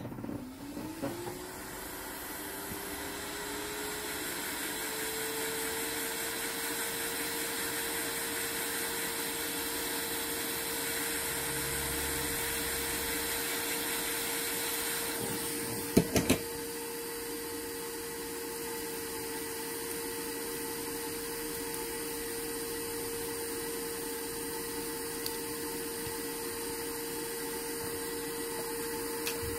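Small electric motor switched on abruptly, rising in pitch over the first few seconds as it spins up, then running at a steady speed until it cuts off suddenly. A couple of sharp clicks come about halfway through.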